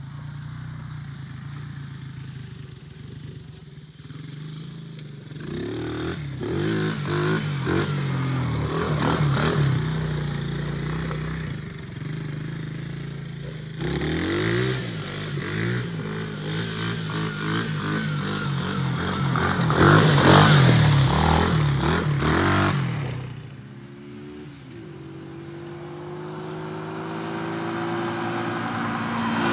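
Small 125 cc quad ATV engines being ridden off-road, revving up and down so the engine pitch repeatedly rises and falls. Near the end, two ATVs approach and grow steadily louder.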